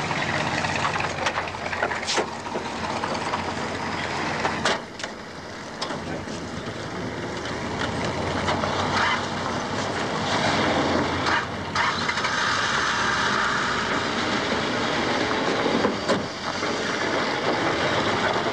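A car scene from a film soundtrack: steady vehicle and outdoor noise, with a few sharp knocks spread through it.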